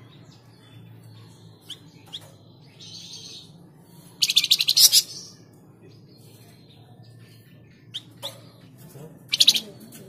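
Caged flamboyan (tledekan jati) songbird calling: a few short sharp chirps, then two loud, rapid rattling trills, one about four seconds in and one near the end. A faint low hum runs underneath.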